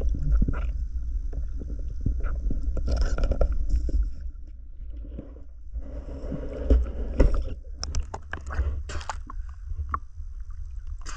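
Low, muffled underwater rumble of water moving over a diver's camera, with knocks and gurgling as the spearfisher handles his catch, then splashing as he comes up at the surface near the end.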